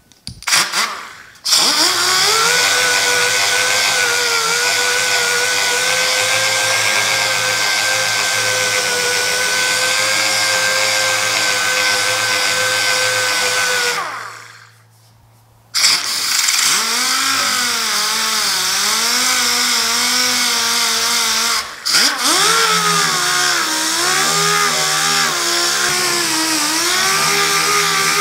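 Pneumatic dual-action sander with 80-grit paper sanding down a steel truck tailgate: a steady machine whine. It stops for about two seconds midway, then runs again with its pitch dipping and wavering as it is pressed into the panel, with a brief drop near the end.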